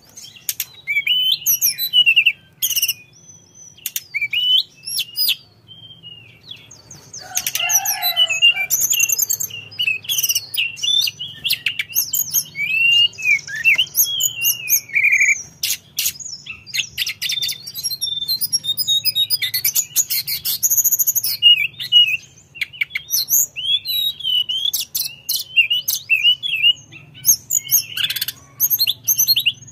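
Hill blue flycatcher singing a long, varied run of quick sweet whistles, slurred notes and trills with short pauses between phrases.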